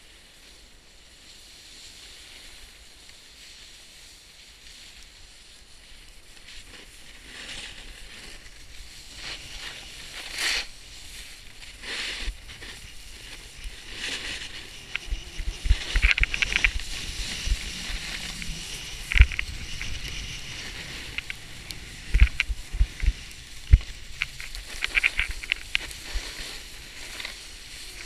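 Snowboard sliding down a groomed slope: a steady hiss and scrape of the board on the snow that grows louder as speed builds, with sharp edge scrapes and low thumps in the second half.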